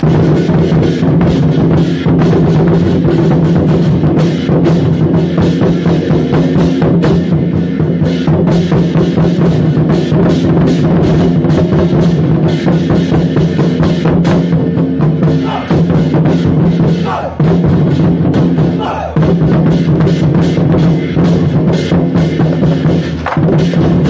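Loud procession music with dense, rapid drumming, bass drum and snare strokes, over sustained tones. It drops out briefly three times a little past the middle.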